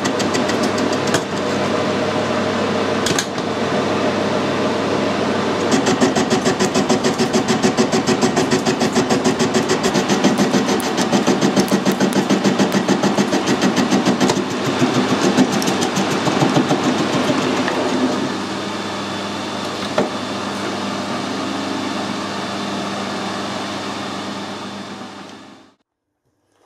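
Metal lathe taking a heavy turning cut with a carbide insert tool: steady machine running under the cutting noise, with a rhythmic pulsing of about four beats a second through the middle stretch. The sound fades out near the end.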